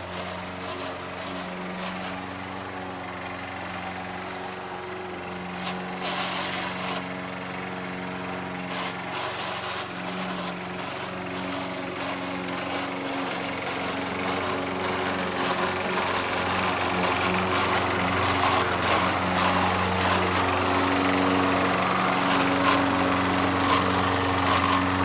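Toro Recycler self-propelled walk-behind lawn mower running steadily under load while cutting grass, with rattling and grinding from its failing drive transmission. It gets louder about halfway through.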